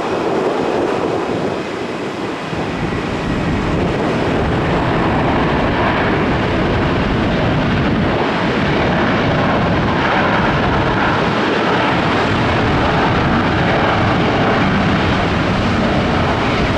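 Jet airliner engines running, a loud steady rush of noise that grows slightly louder after the first couple of seconds and then holds.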